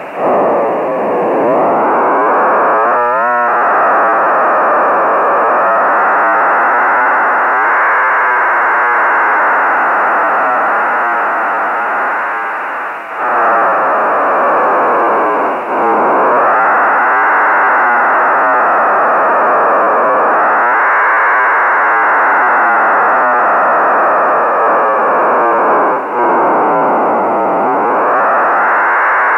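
HuskySat-1's BPSK telemetry downlink heard through a ham radio's SSB receiver: a loud, buzzy, raspy drone of many stacked tones that fills the receiver's narrow audio passband. Its pitch swoops down and back up several times as the radio is retuned by hand to follow the satellite's Doppler shift, while the signal stays strong enough for frames to decode.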